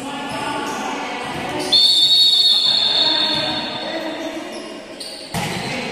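A whistle blows one long, steady, high blast about two seconds in, over players' voices echoing in a large hall. Near the end a ball lands with a single sharp thud.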